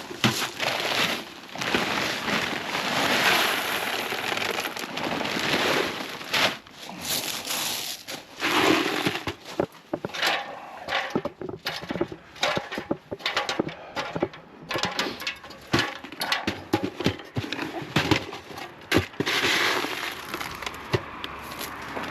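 Roughcast render work: gritty scraping with many irregular sharp clicks and crackles from the render and stones being worked.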